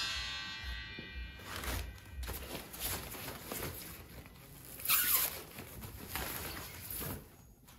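A steel coil spring rings briefly at the start as it is set down, then rustling and scuffing noises, loudest about five seconds in.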